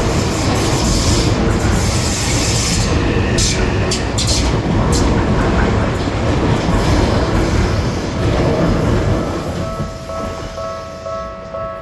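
Train passing at a railroad crossing: a loud, steady rumble of wheels on rails, with a few sharp clacks about three to four and a half seconds in. Near the end the rumble drops away and a repeating ringing tone comes in.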